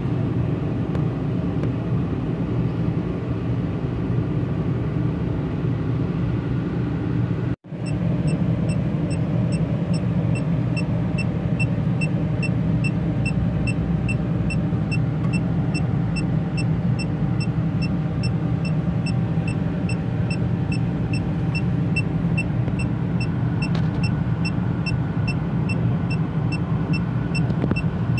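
Electronic refrigerant leak detector beeping steadily, about twice a second, starting about eight seconds in, over the steady low hum of the running refrigeration unit. The beeping comes as the probe is held at a capillary line connection where an oily stain marks a refrigerant gas leak.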